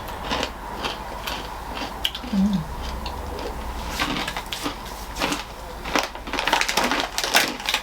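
Crunchy mixed-nut and cornick snacks being handled and chewed: a run of short, crisp crackles and crunches, coming thicker about six seconds in.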